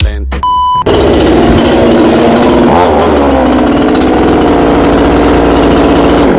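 A short beep, then a two-stroke STIHL chainsaw running loudly, its pitch wavering as it is revved, cutting off abruptly at the end.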